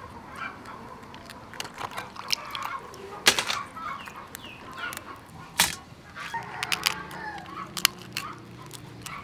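Raw blue crabs being pulled apart by hand: sharp cracks and snaps of shell, the loudest about three, five and a half and nearly eight seconds in. Chickens cluck in the background.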